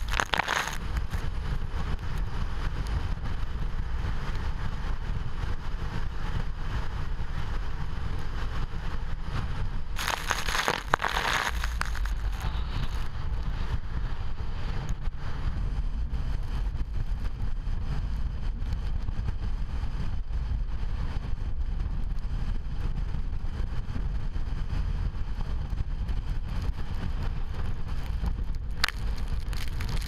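Typhoon-force wind buffeting the microphone with a steady low rumble, over the noise of heavy surf breaking on rocks. A louder rushing surge comes about ten seconds in.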